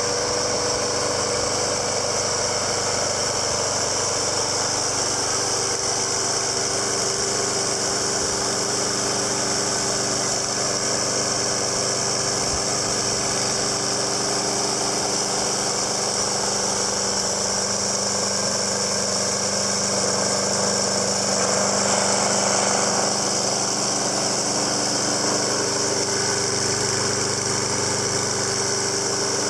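Briggs & Stratton Intech 6.75 HP overhead-valve engine on a Snapper self-propelled walk-behind lawn mower running steadily, getting slightly louder for a few seconds about two-thirds of the way through.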